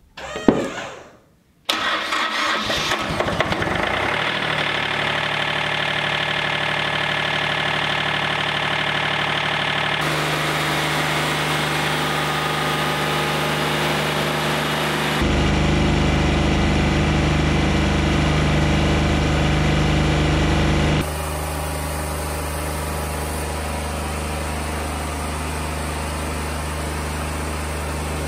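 Wood-Mizer LT40 hydraulic sawmill's engine starting about two seconds in, then running steadily. Its tone changes abruptly three times, louder for a stretch past the middle.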